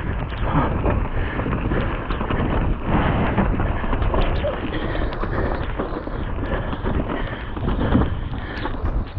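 Mountain bike descending fast over a wet, muddy trail: tyres rolling through mud and over roots, with the bike rattling and knocking over bumps. Wind buffets the camera microphone throughout.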